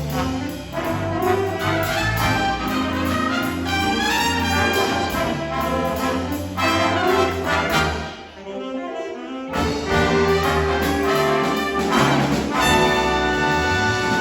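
A high school jazz band playing, with the trumpets and trombones of the brass section to the fore. About eight seconds in the band briefly thins out, then the full band comes back in and holds a long chord near the end.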